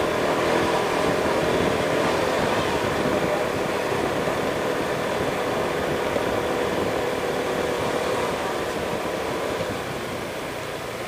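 Honda scooter's engine running as it rides along, with a steady rush of wind and road noise; the sound eases off near the end.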